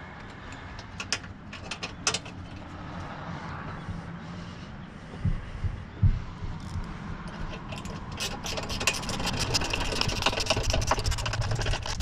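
Hand tools on the condenser mounting hardware: scattered metal clinks, then a dense run of rapid clicking of a wrench in the last few seconds as the mount bolts are tightened.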